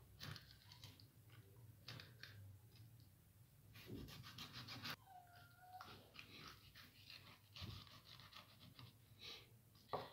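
Faint scrapes and light knocks of a chef's knife cutting into a mullet on a wooden cutting board, busiest about four to five seconds in. A brief faint squeak sounds just after that.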